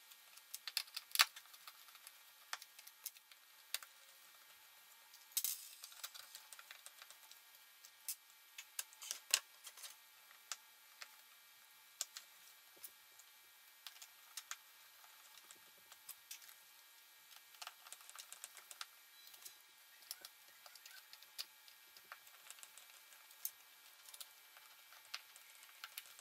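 Hand screwdriver turning screws in the replaceable plastic toe piece of a Nordica ski boot: faint, irregular clicks and ticks of the metal tip and the hard plastic shell, with a few sharper clicks about a second in and around five and nine seconds in.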